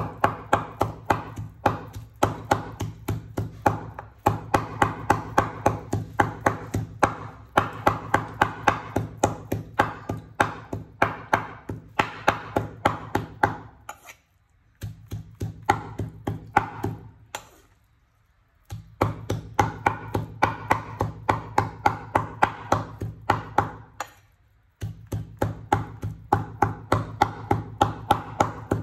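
Cleaver mincing raw pork on a wooden cutting board: quick, even chops, about three or four a second, stopping briefly three times.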